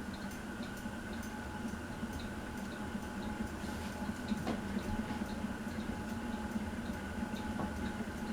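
Harbor Breeze Palm Breeze ceiling fan running: a steady motor hum with a light, regular ticking at about two to three ticks a second.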